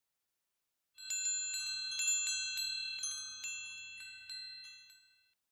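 Wind chimes: a run of high metal tones struck one after another, starting about a second in and ringing out as it fades over about four seconds. It is the cue for the learner to say the phrase aloud.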